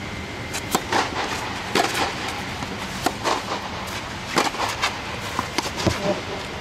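A tennis serve and rally: racket strings striking the ball, a series of sharp pops spaced roughly half a second to a second apart, over a steady mechanical hum.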